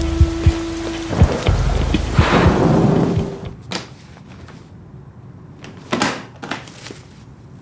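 Heavy rain pouring down, with low thumps and a swelling rush between two and three seconds in. It cuts off suddenly about three and a half seconds in, leaving a quiet room with a few brief knocks and rustles of things being handled in a plastic box.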